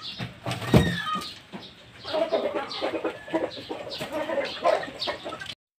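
Rhode Island Red chickens clucking, a run of short clucks, with a single thump about a second in. The sound cuts off suddenly near the end.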